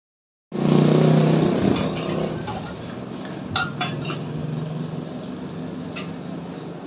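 A steady mechanical hum with a low pitch, starting suddenly and loud, then easing to a lower steady level after about two seconds. A few light clicks, like metal touching metal, sound in the middle and near the end.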